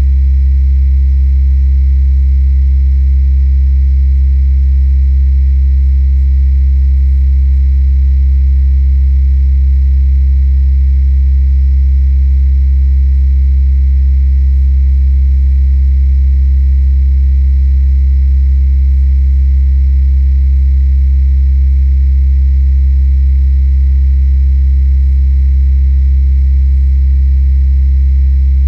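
Steady, unchanging low electrical hum, heard through the walls of a safe, which the recordist attributes to nearby power lines and the electric grid.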